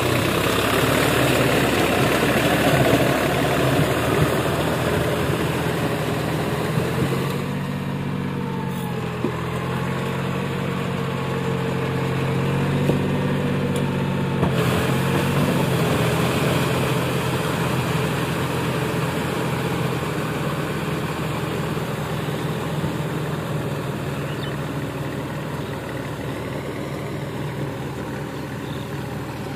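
Deutz-Fahr Agrolux 50 tractor's diesel engine running steadily as the tractor pulls a rotavator through flooded paddy mud, growing slowly fainter as it moves away.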